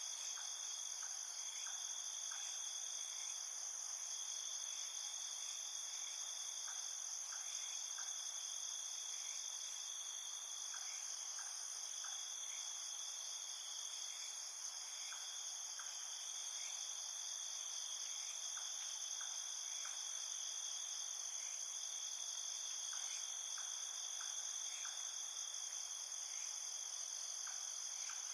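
Night insect chorus: crickets trilling steadily in several high pitches at once. Small clusters of short, lower chirps come every few seconds.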